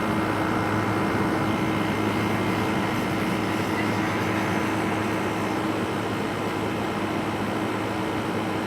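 Frigidaire 5000 BTU window air conditioner running: compressor and fan giving a steady hum with a constant low tone and airy noise over it.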